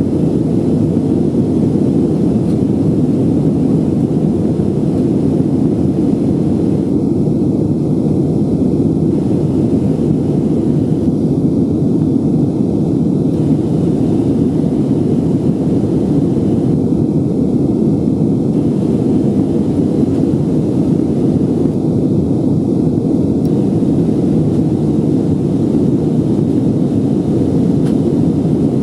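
Steady cabin roar inside an Airbus A320 climbing out after takeoff: its jet engines and the rushing airflow, heard from a window seat by the wing, deep and unchanging.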